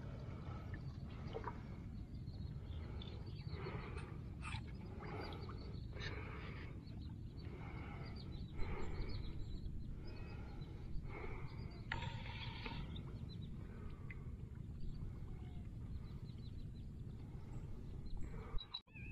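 Steady low wind rumble on the microphone, with repeated short rustles and snaps of branches and leaves as someone climbs through a fallen tree.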